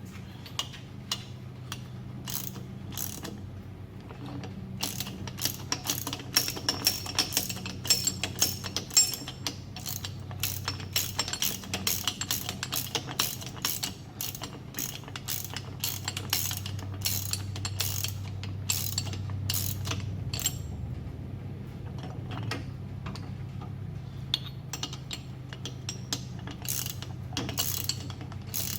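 Hand socket ratchet with a 3/4-inch socket on an extension, clicking in quick runs of pawl clicks as it is worked back and forth on a bolt. A steady low hum runs underneath.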